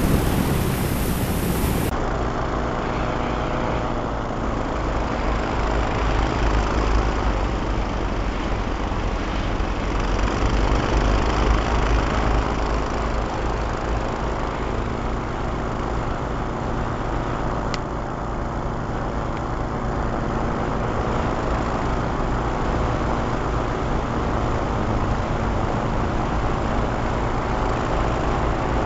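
Twin-engine airboat running steadily: a continuous engine and propeller drone with a low rumble.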